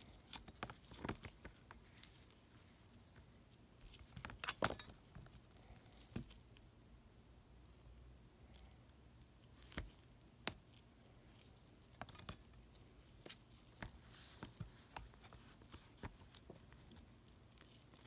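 Faint, irregular small clicks and scrapes of fine metal tweezers and a circuit board being handled, with a denser cluster of clicks about four seconds in.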